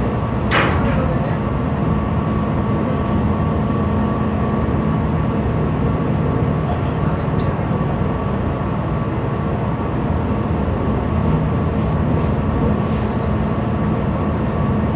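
Ship's machinery droning steadily, with a constant hum.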